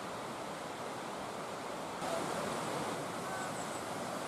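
Steady rush of the Usui River's flowing water, an even wash of noise that steps up slightly about two seconds in.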